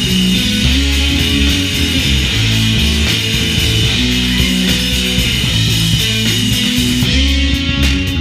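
Live rock band playing loud: guitar and bass holding notes that change every second or so, over a drum kit, with sharp drum and cymbal hits standing out near the end.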